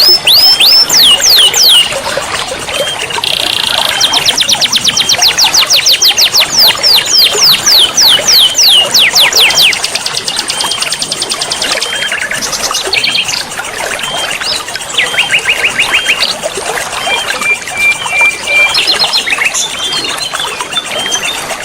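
Songbirds singing fast, shrill trills of downward-sweeping notes, about five a second, in a long dense run through the first half, then sparser chirps and short trills, over the steady rush of a waterfall and flowing water.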